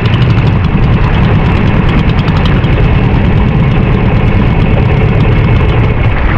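Engine of a Philippine fishing bangka running loud and steady, with a rapid even beat of firing pulses.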